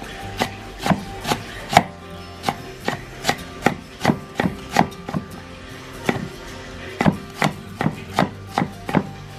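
Chef's knife chopping lemongrass on a thick round wooden chopping block: a run of sharp knocks, about two or three a second, with a short pause about midway.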